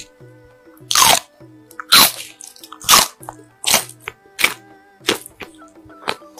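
Loud crisp crunching bites into raw green chili peppers, about one crunch a second, over soft background music.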